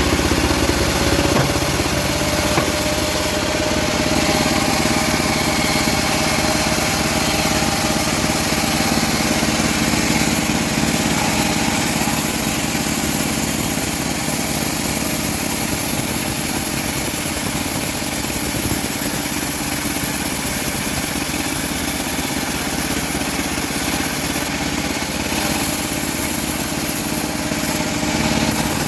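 Homemade bandsaw mill running steadily, sawing teak: a constant machine noise that holds at an even level throughout.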